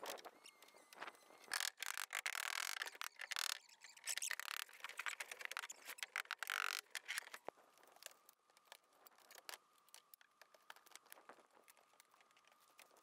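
Roof carpentry: a quick run of scrapes, knocks and clatters from wooden roof boards being handled over the rafters, busiest in the first half. After that come sparse ticks over a faint steady high whine.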